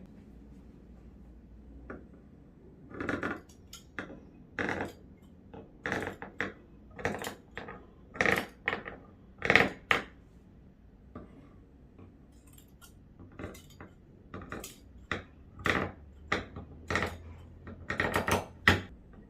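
Irregular clicks, taps and short scrapes of small hard objects being handled, a couple of dozen in all, bunched most densely near the end.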